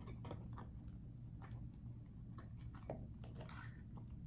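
Faint chewing and mouth sounds of a person eating soft food, with scattered small smacks and clicks.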